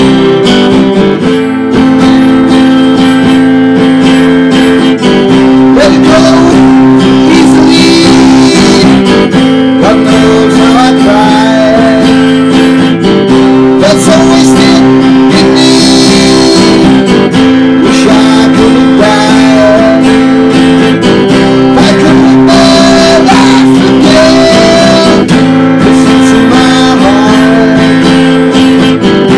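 Gibson HP 415 acoustic-electric guitar strummed through a Roland Street Cube amp, playing slow ballad chords that change every few seconds. A wavering melody line sits above the chords from about six seconds in.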